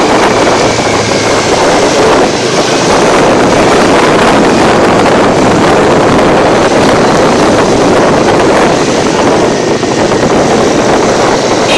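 Loud, steady wind rush on the microphone from riding a Bajaj Dominar 400 motorcycle at speed, mixed with the bike's running noise.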